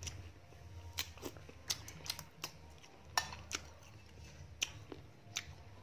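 Faint, scattered light clicks and taps, about a dozen, irregularly spaced, over a low steady hum.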